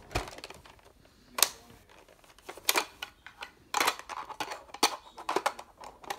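Handling noise: a string of irregular clicks and rustles from hands moving over plastic and bedding, the loudest about a second and a half in.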